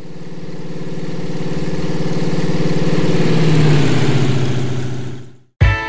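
A motor vehicle or aircraft engine passing by, likely an intro sound effect. A steady, pulsing engine drone grows louder for about four seconds, drops slightly in pitch at its loudest, then fades away.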